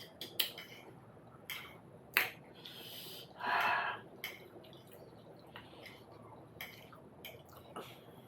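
Eating sounds from a meal of momos and soup: sharp clicks and taps of cutlery against dishes now and then, with a short hissing intake of breath through the mouth a bit over three seconds in.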